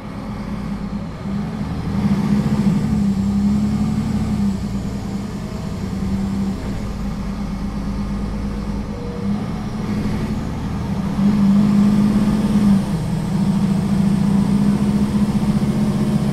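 Engine of a Solaris Urbino III 12 city bus under kickdown acceleration, heard from inside the bus. The engine note climbs over the first two seconds and swells again about two-thirds of the way through, with a brief dip just before that swell ends.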